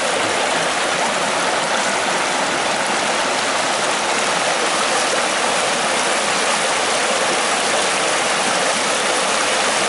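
Shallow water rushing through small rapids over a stony bed and between concrete blocks: a steady, even rushing that doesn't let up.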